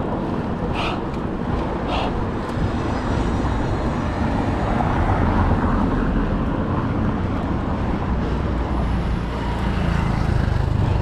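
Steady rumble of passing road traffic mixed with wind and rolling noise on an action camera's microphone during a street ride on a mountain bike, with a couple of short high chirps about one and two seconds in.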